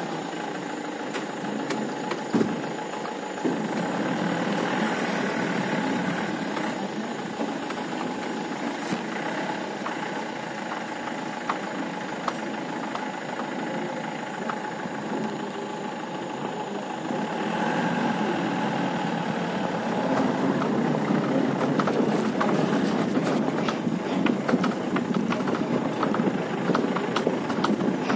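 Mahindra Bolero Pickup driving along a rough dirt and gravel track: engine running steadily under the noise of tyres rolling over stones and loose gravel. It gets louder about twenty seconds in, with many small clicks of stones.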